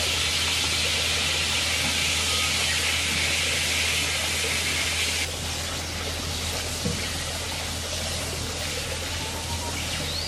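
Raw chicken pieces sizzling in hot oil in a pot, with garlic, while being turned with a silicone spatula. The sizzle is loud for the first five seconds or so and softer after that, over a steady low hum.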